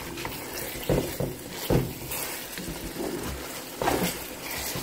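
A spoon stirring beans cooking in a tomato-paste sauce in an aluminium pot. There is a steady wet sizzle, with three louder stirring strokes through the sauce.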